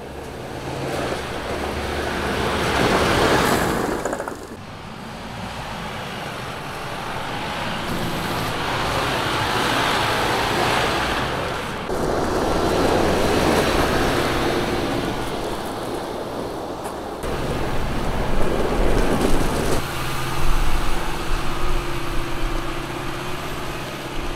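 Mercedes-Benz Unimog UHE 5023 with its OM 934 5.1-litre four-cylinder diesel running while it drives over gravel and rough ground, engine sound mixed with tyre and gravel noise. The sound swells and fades as the truck passes, and changes abruptly several times across separate shots.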